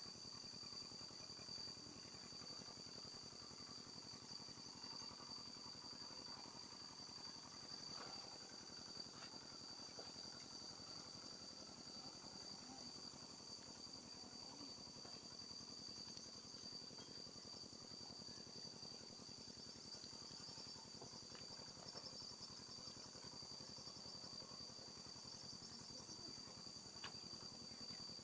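Faint, steady high-pitched insect chorus, a continuous trill, with a few soft clicks here and there.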